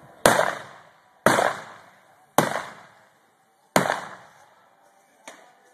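Four gunshots about a second apart, each ringing out briefly, then a much weaker pop near the end.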